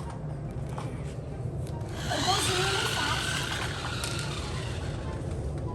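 Remote-control dinosaur monster truck toy driving, its motor and wheels giving a steady low rumble. About two seconds in its built-in sound effect plays for roughly two seconds, a wavering pitched noise over the motor.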